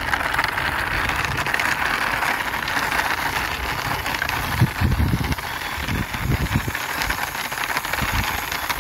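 Plastic wheels of a toy double-decker bus rolling and grinding along a rough concrete wall top as it is pushed by hand, a steady gritty rattle. Low bumps come in the second half.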